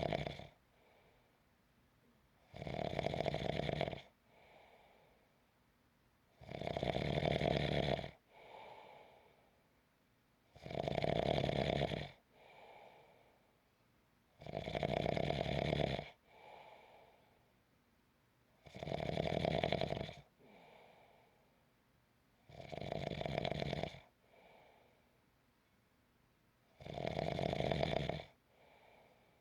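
A person snoring in a slow, steady rhythm. A loud snore of about a second and a half comes roughly every four seconds, seven times in all, and each is followed by a fainter breath.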